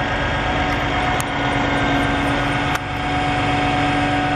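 Truck's diesel engine running steadily while driving the knuckle-boom crane's hydraulics, with a steady whine held over the rumble. Two sharp clicks, about one and three seconds in.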